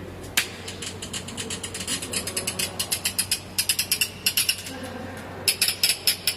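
Rapid, irregular mechanical clicking and ticking, several clicks a second, from a machine or mechanism at work, over a low steady hum.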